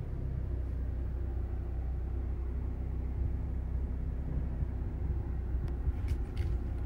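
A 2021 BMW 430i Convertible's 2.0-litre four-cylinder running, a steady low rumble, with a few short clicks near the end.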